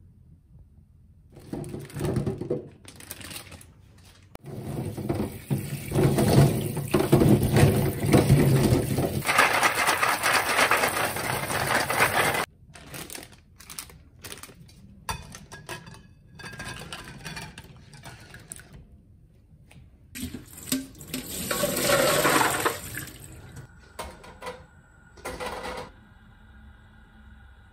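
Water running from a tap into a sink in two long gushes, with short knocks of handling in between.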